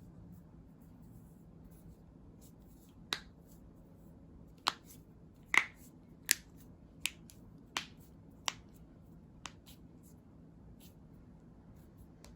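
Human joints being cracked by hand: a run of about eight sharp pops over some six seconds, irregularly spaced, with a few fainter ticks between them.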